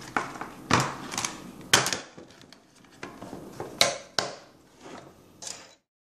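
Hollow plastic clacks and knocks from a Thomas & Friends TrackMaster quarry playset being folded shut and stood on a wooden table, a string of irregular sharp clicks; the sound cuts off suddenly near the end.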